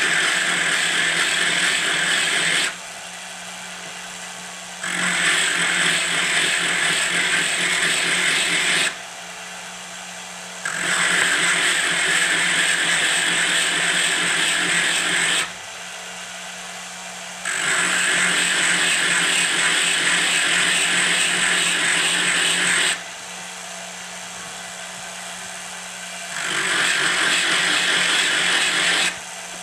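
High-speed rotary tool with a diamond burr grinding the inside of a coin ring in five passes of a few seconds each, removing hard metal to enlarge the ring toward size 10. Between passes the tool keeps running more quietly off the metal.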